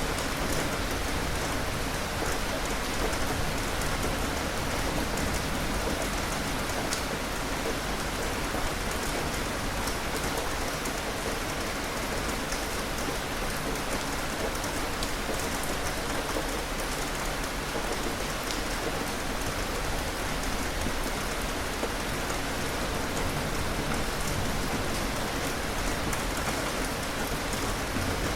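Steady rain falling on a surface, a continuous even hiss with the fine ticks of individual drops.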